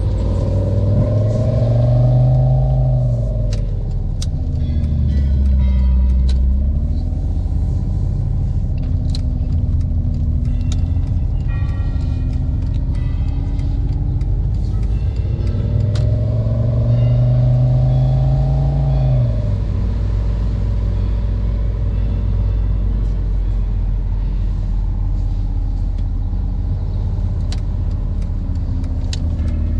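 Simulated sports-car engine and exhaust sound played through a car's own speakers by an engine-sound app that follows the real car's speed. The engine note sinks during the first few seconds, climbs again around the middle and drops suddenly a few seconds later, then holds steady at cruise, with occasional sharp pops from the app's pop-and-bang mode.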